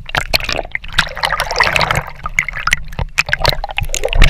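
Sea water splashing and gurgling around an action camera held at the surface by a swimmer, with many short crackling pops of water against the microphone as the camera dips under.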